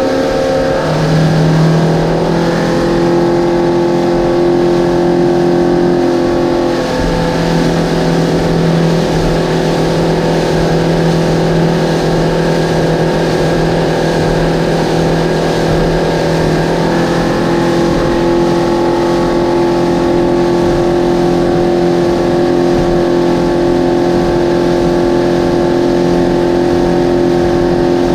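Twin Yamaha 200 outboard motors running at speed, a steady engine note that shifts slightly in pitch a few times, over the rush of water from the wake.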